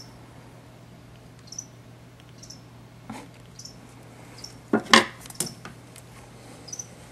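Live feeder mouse giving short high squeaks at irregular intervals, about once a second. About five seconds in comes a brief cluster of loud hard knocks and clatters, the loudest sound.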